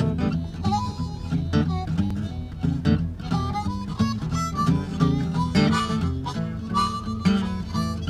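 Acoustic guitar strummed in a blues rhythm with a harmonica playing a melody over it, bending notes up and down.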